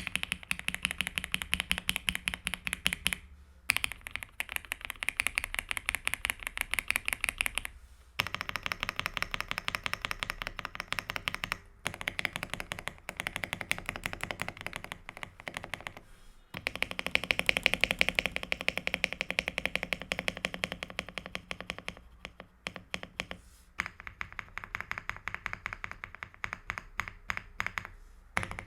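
Fast typing on an AULA F75 mechanical keyboard with LEOBOG Ice Vein linear switches: a rapid, dense run of key clicks, broken by a few short pauses.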